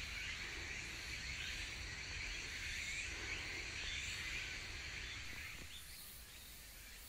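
Woodland ambience: a dense, high chorus of calling insects and birds with small chirps over it, growing fainter about five and a half seconds in.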